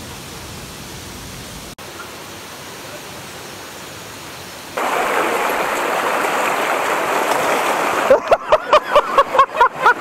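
Steady rush of a mountain stream and waterfall, which steps suddenly louder about halfway through. Near the end a person breaks into rhythmic laughter over the water.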